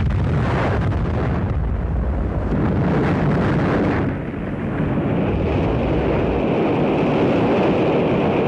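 Explosion of an Atlas-Centaur rocket in flight, heard as a long, steady, noisy rumble with a brief dip in level about four seconds in.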